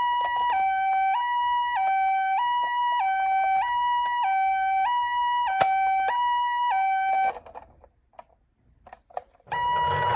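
Japanese ambulance two-tone 'pee-po' siren, alternating evenly between a high and a low tone about every 0.6 seconds, with a couple of sharp clicks. It cuts off about seven seconds in, and near the end it starts again under a rushing noise.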